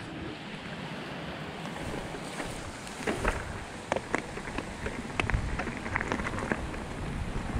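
Mountain bike rolling down a rough, rocky trail: tyre rumble and wind noise, with sharp clicks and clatters of stones and rattling bike parts that come thicker and louder from about three seconds in as the pace picks up.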